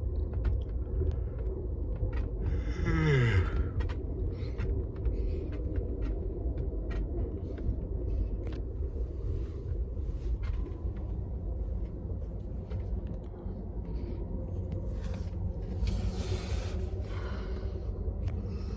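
Amtrak Superliner passenger car riding along the track: a steady low rumble with frequent small clicks, rattles and creaks. There is a brief falling tone about three seconds in and a short hiss near the end.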